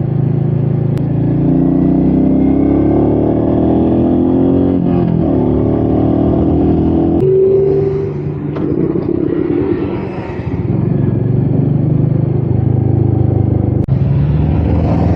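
Royal Enfield Meteor 350's single-cylinder engine pulling under throttle, its pitch rising and dropping back as it runs up through the gears. Its level eases off for a couple of seconds about halfway before it settles into a steady run, with wind noise over it.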